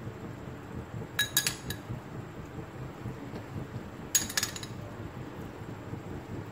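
Metal spoon clinking against a small glass bowl as it is dipped for food colouring: two short clusters of light clinks, about a second in and about four seconds in, over a faint steady low hum.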